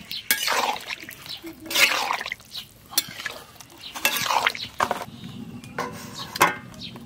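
Metal spatula stirring koftas in thin curry gravy in a metal kadai: repeated wet swishing strokes. Near the end a steel plate is set on the kadai as a lid with a metallic clink.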